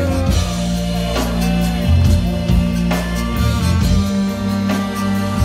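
Live zydeco band playing an instrumental passage over the stage speakers, with sustained bass notes under the melody and a drum hit about once a second.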